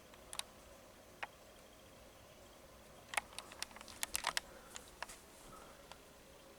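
Scattered light clicks and knocks from handling, with a quick cluster of them a little past the middle.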